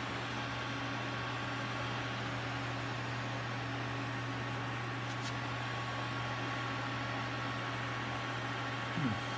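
Old desktop PC server running: its cooling fans and spinning hard drives give a steady hum with a thin, constant high tone over a hiss.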